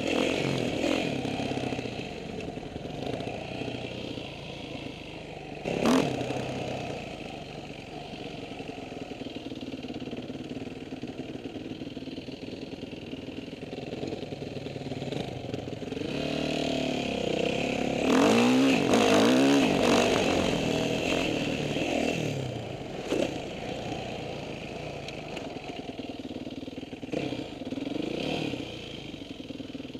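Suzuki LT-Z250 quad's single-cylinder four-stroke engine running and revving up and down, heard from on board. There is a sharp knock about six seconds in, and a stretch of hard revving with pitch rising and falling between about 16 and 21 seconds in.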